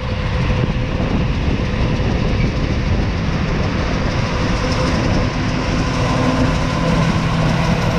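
Strong wind buffeting the microphone over a steady running engine of farm machinery.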